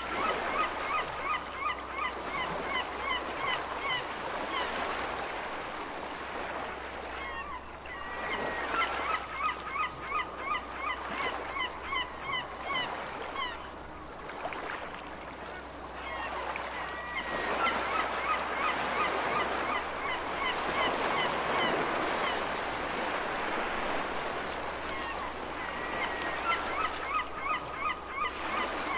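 Gulls calling in bouts of quick, repeated short notes, about three a second, each bout lasting a few seconds and returning every nine seconds or so, over a steady wash of ocean surf.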